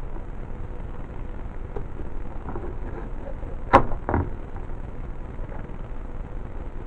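Handling noises while slipping a rubber band onto a slingshot fork: a single sharp snap a little past halfway, then a duller knock just after, over a steady low hum.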